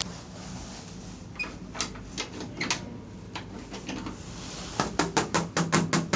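Scattered sharp clicks and taps, then a quick run of about eight clicks near the end over a low hum.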